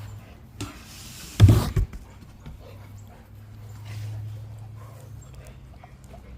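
An XL American Bully dog making sounds close by, with a brief loud burst about a second and a half in, over a steady low hum.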